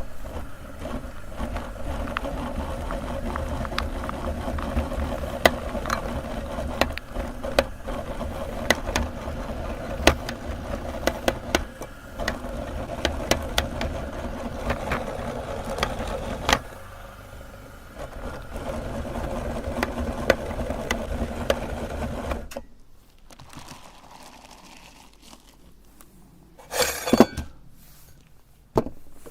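Electric meat grinder running with a steady motor hum, crackling and clicking as it grinds soap. The motor cuts out a few seconds before the end, followed by a couple of short clinks.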